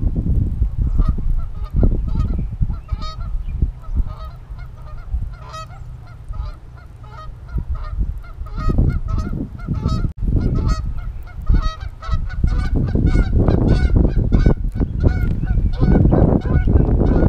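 Birds calling over and over in short, pitched calls that come thick and fast in the second half, over a low rumble of wind on the microphone.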